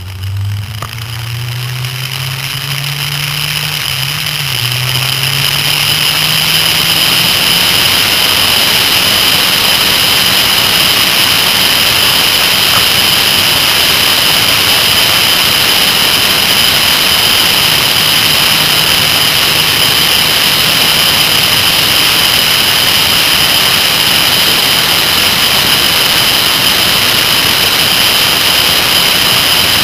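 Kawasaki ZR-7S air-cooled inline-four motorcycle engine pulling up through the revs, with a brief dip about four seconds in like a gear change. It then settles into steady engine and wind noise at road speed, with a steady high whine on top.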